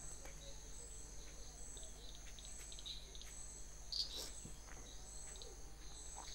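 Crickets chirping steadily: a high, even trill, with another pulsing about one and a half times a second. A faint low hum lies underneath, and a brief louder chirp comes about four seconds in.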